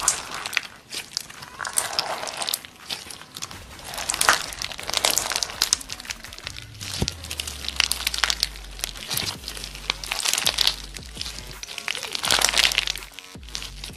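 Clear slime packed with colourful beads being squeezed and pressed by hand, giving dense, irregular crackling and crunching.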